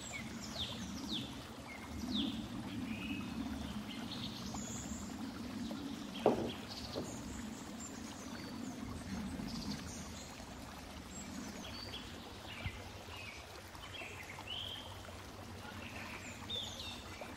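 Birds chirping in short, falling calls scattered throughout, over a steady low rushing like running water, with a single knock about six seconds in.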